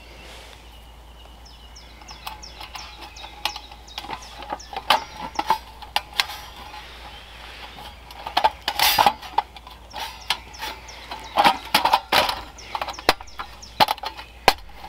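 Panels of a Lixada folding metal wood stove being slotted together and adjusted by hand: irregular metallic clicks and knocks. They come more often and louder in the second half.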